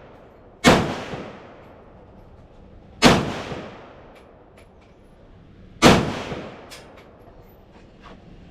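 AK-47 assault rifle firing three single shots about two and a half seconds apart, each a sharp, very loud crack with an echo trailing off over about a second, followed by a few faint clicks.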